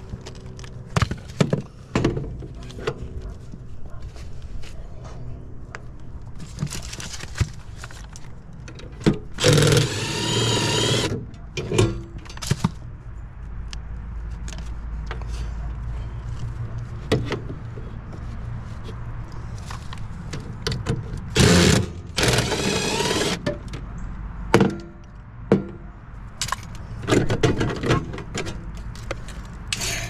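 Milwaukee cordless driver with a 1/4-inch nut-driver bit running in three short bursts, each a second or two long, backing out the screws of a condenser fan motor. Scattered metal knocks and clanks from the sheet-metal panel and the motor being handled come between the bursts.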